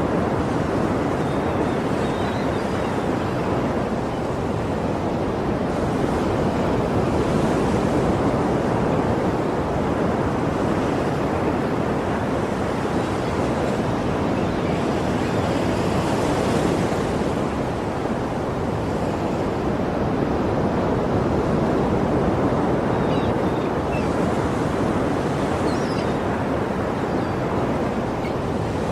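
Sea waves washing on a shore: a steady rushing surf with gentle swells of hiss every several seconds.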